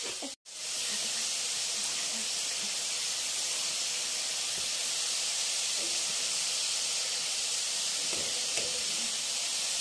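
Nimki dough pieces deep-frying in hot oil in a wok, a steady sizzle. The sound cuts out briefly just under half a second in.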